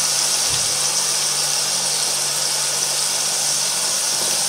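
Mushrooms and a fried egg sizzling in a frying pan, a steady high hiss, with a faint low hum underneath. The pan is running low on fat.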